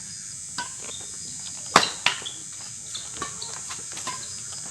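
Badminton rackets striking a shuttlecock during a fast doubles rally: a string of sharp, irregular hits, the loudest about two seconds in.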